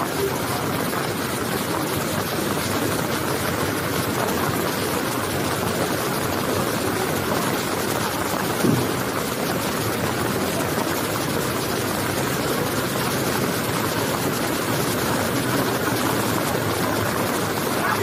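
Brown floodwater rushing in a steady, loud torrent, with a wheel loader's diesel engine running as the machine pushes into the flow. A brief louder sound stands out about halfway through.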